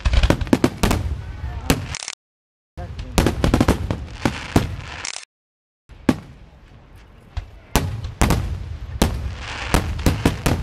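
Fireworks going off in rapid, irregular bangs and crackles, dense at times, with the sound cutting out completely twice for under a second.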